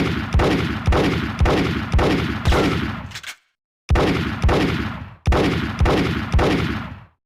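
Revolver gunshot sound effect: shots fired in quick succession about half a second apart, each followed by a falling echo tail. It comes in two volleys, the first ending about three seconds in with a couple of weaker pops, then about half a second of silence before the second volley.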